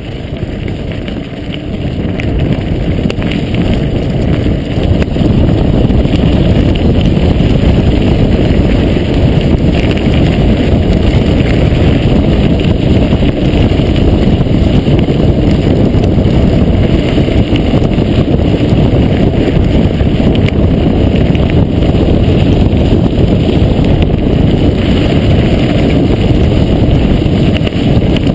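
Heavy wind buffeting on the microphone mixed with the rumble of a Specialized Epic Expert mountain bike's tyres on loose gravel and the bike's rattling over the stones. It grows louder over the first few seconds, then stays steady.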